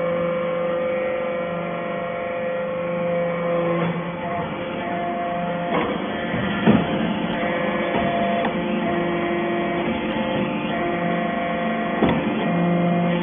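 Hydraulic scrap-metal chip baler running: a steady hum from its power pack, whose tones shift now and then, with a few sharp metallic knocks about halfway through and again near the end.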